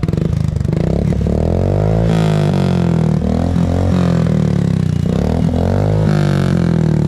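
Royal Enfield Bullet's single-cylinder engine running loud through its exhaust, revved up and let back down twice, about two seconds in and again about six seconds in.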